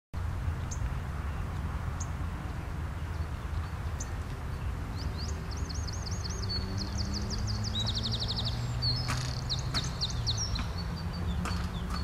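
Small songbird calling: a few single high chirps, then from about five seconds in rapid runs of high chirps and trills, over a steady low outdoor rumble.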